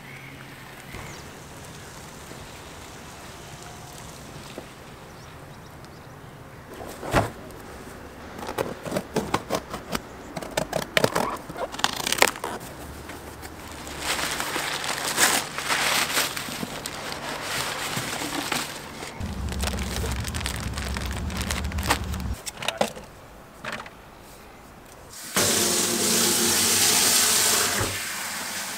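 Crumpled paper packing rustling and crackling as a cardboard box is unpacked, with a few seconds of low rumble partway through; near the end a tap runs hard into a plastic bucket, a loud steady hiss of water.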